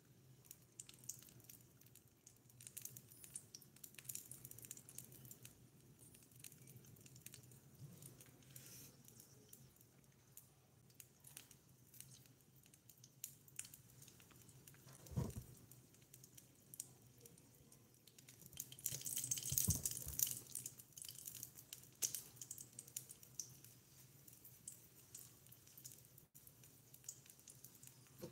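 Faint handling sounds of miniature dishes and food: scattered small clicks and taps, a soft thump about halfway through, and a short burst of scraping or rustling a few seconds later.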